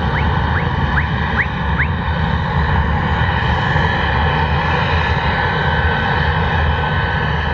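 Tupolev Tu-134A's twin rear-mounted Soloviev D-30 turbofans running at taxi power as the jet rolls past: a steady jet whine over a deep rumble. Short rising chirps cut through the whine in the first two seconds.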